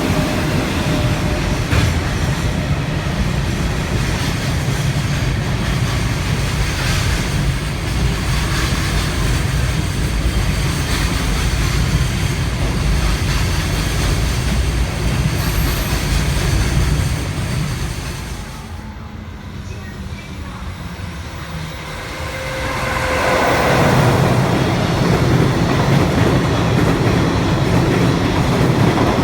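Freight train passing close by, its wagons rumbling and clattering over the rail joints. The noise drops away for a few seconds about two-thirds of the way through, then a train's rumble builds again.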